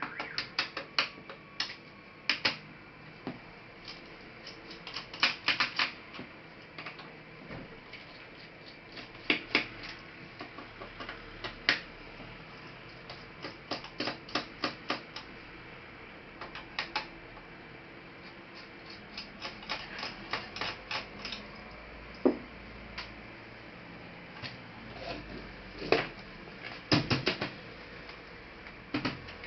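Sharp clicks and taps of plastic and metal as a Toshiba Satellite C660 laptop is taken apart by hand, coming in irregular quick clusters with pauses between.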